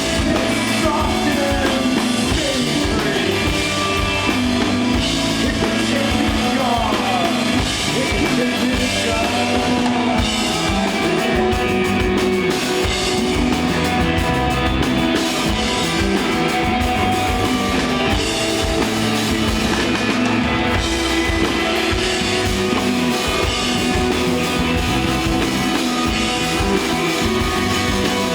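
Live rock band playing desert rock: electric guitar, bass guitar and drum kit at a steady level, with a few sliding guitar notes in the first several seconds.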